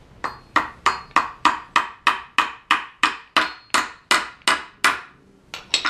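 Claw hammer tapping the retaining pin into an SKS rifle bolt against a wooden 2x4, about fifteen even strikes at roughly three a second, each with a short metallic ring, then two quicker taps near the end.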